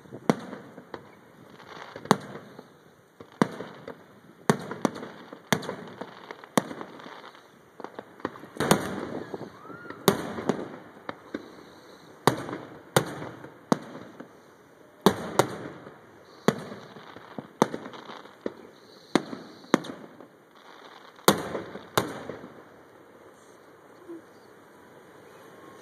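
Aerial fireworks going off: sharp bangs about once a second, each trailing off in an echoing rumble. The bangs thin out over the last few seconds.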